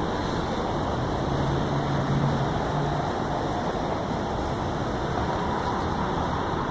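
City traffic on a wet road: a steady wash of tyre and engine noise, with a low engine hum standing out for a second or two about a second in.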